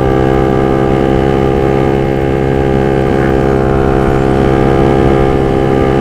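Sport motorcycle engine running at a steady speed while cruising, a constant even drone with no change in pitch.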